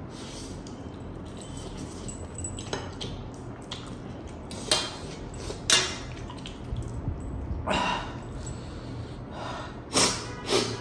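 Close-up eating sounds of a man slurping and chewing very spicy instant noodles, with several short, loud slurps and sniffs in the second half as the chilli heat gets to him.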